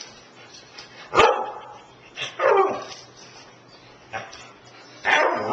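Husky–German shepherd mix vocalizing three times in short, falling-pitched barks: about a second in, again a second later, and once more near the end.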